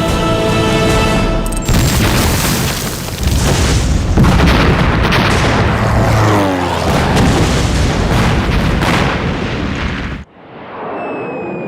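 Film soundtrack of explosions: after a moment of music, a long stretch of loud blasts and rumbling plays over the score from about two seconds in. It cuts off abruptly near the end, leaving quieter sound with a tone that slides slowly downward.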